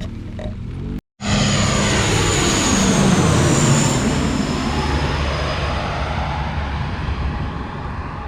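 Aircraft passing low overhead: a loud engine roar with a thin high whine that slowly falls in pitch, loudest a couple of seconds after it comes in and then easing off.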